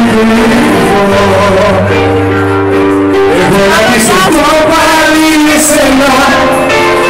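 Live Greek popular song: singing over a band with guitar and bass.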